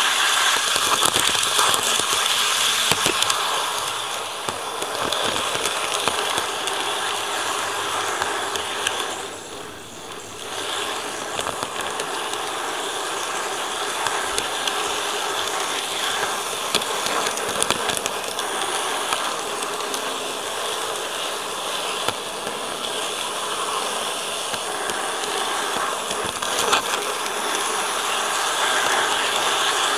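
KATO N-gauge model train running along the track, heard from a digital camera riding on one of its freight cars: a steady whirring rattle, briefly quieter about ten seconds in.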